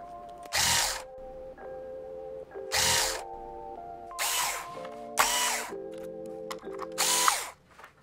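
Cordless electric screwdriver whirring in five short bursts of about half a second each as it backs out laptop motherboard screws one after another.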